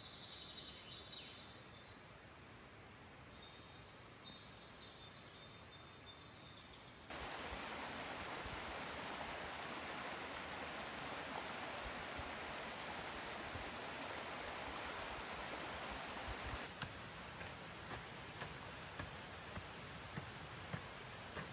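A small waterfall trickling down a rocky bank, a steady rush of water that starts abruptly about seven seconds in and is the loudest sound. Before it, a quiet forest with a faint high bird call repeating. In the last few seconds, wood being struck, a regular knock about every two-thirds of a second.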